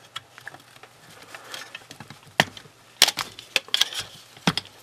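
Two-piece plastic AR-15 handguard being pulled free of the delta ring and lifted off the rifle: a scatter of sharp clicks and knocks, the loudest about three seconds in.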